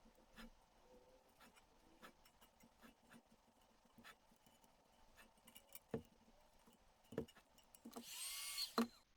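Faint scattered taps and handling clicks as a vinyl rim-sticker ring is worked down onto a wheel rim, with two sharper knocks about six and seven seconds in. Near the end a brief, much louder hiss with a sliding squeal lasts under a second.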